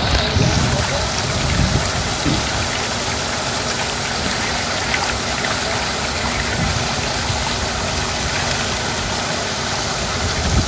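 A motor running steadily together with rushing, splashing water, an even noise with no breaks or changes.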